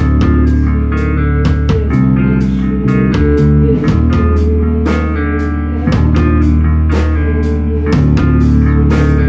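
Live rock band playing: electric guitars holding chords over a steady drum-kit beat with cymbal hits several times a second.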